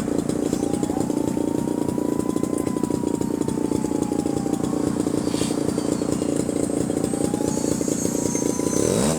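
Small RC model-aircraft engine running steadily. A fainter whine rises and falls in pitch twice, the second time near the end.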